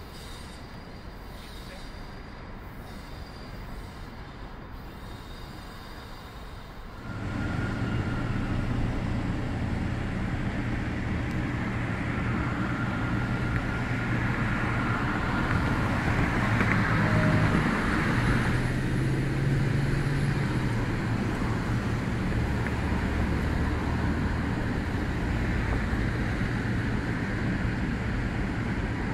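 Alstom LINT diesel railcar running as it draws into a station, a steady engine drone that starts abruptly about seven seconds in, with faint high squeals and a burst of hiss about halfway through. Before that, a fainter rumble of a train pulling away.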